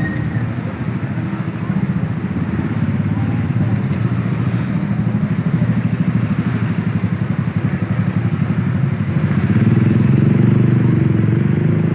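Street traffic: motorcycle and car engines running close by in a steady din, swelling louder near the end.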